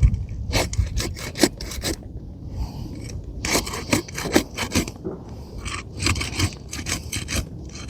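Pry bar scraping along under asphalt roof shingles, breaking them free of the tar seal strip in quick rasping strokes that come in several bursts with short pauses between.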